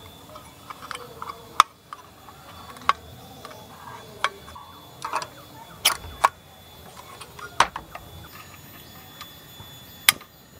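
Irregular sharp clicks and knocks of a portable butane camping stove being handled: unpacked from its plastic case and a gas canister fitted into it.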